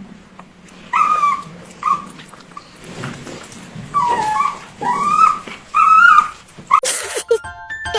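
A dog giving a series of about six short, high calls that rise and fall in pitch, followed by a brief loud noisy burst near the end.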